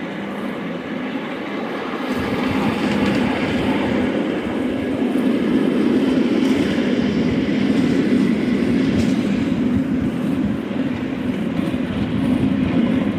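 A steam-hauled train rolling along the track, heard from aboard: a steady rumble of wheels on rail that grows louder about two seconds in.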